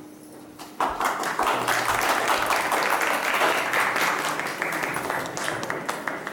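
A small group of people clapping. The applause starts suddenly about a second in and tapers off near the end.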